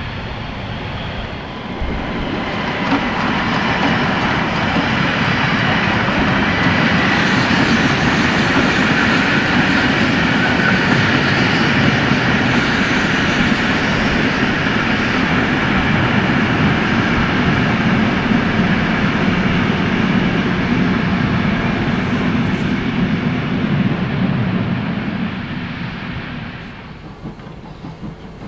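Passenger train hauled by steam tank locomotive 64 419 passing by, its wheels running on the rails in a steady noise that swells about two seconds in and falls away near the end.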